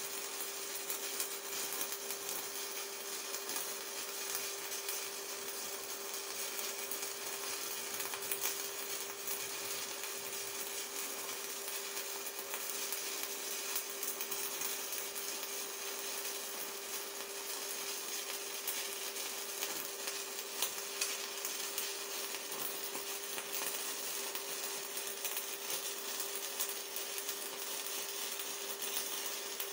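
Stick (MMA) welding arc from an Evrolux IWM190 inverter welder, burning a basic-coated LB electrode overhead at low current: a steady crackling hiss with small pops, over a steady faint hum.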